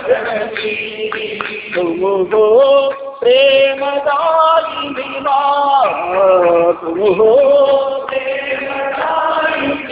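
A man singing a Hindu devotional bhajan in long, wavering held notes that slide from pitch to pitch, over a steady low drone.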